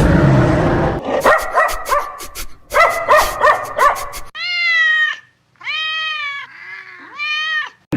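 A domestic cat meowing three times, each meow drawn out and arching up and down in pitch, after a run of short, rapid animal calls in the first half.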